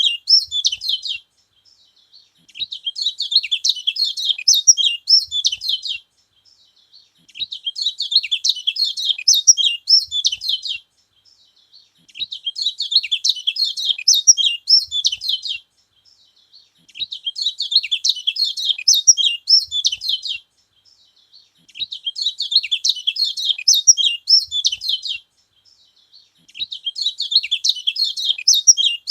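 Kecial kuning (yellow white-eye) singing: bursts of rapid, high twittering song about three and a half seconds long, each followed by a pause of about a second, repeating steadily over and over.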